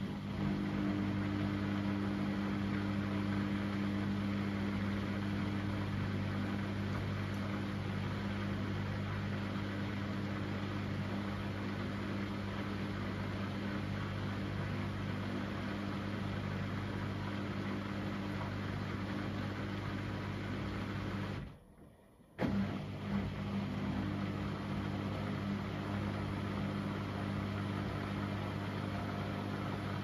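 Washing machine running steadily with a constant motor hum. It cuts out suddenly for about a second around two-thirds of the way through, then carries on as before.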